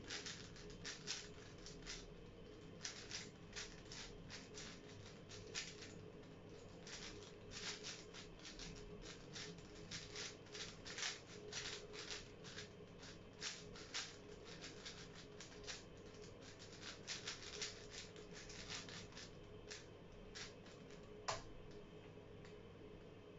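A 5x5 speed cube's plastic layers clicking and clacking in rapid runs as it is turned by hand to scramble it, over a faint steady hum. The turning thins out near the end, and one sharper single click follows.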